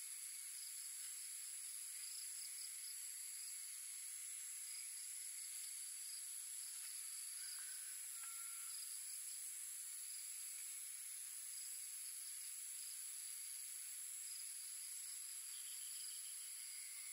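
Chorus of crickets and other insects trilling steadily at several high pitches, one of them pulsing, with a faint short chirp about eight seconds in.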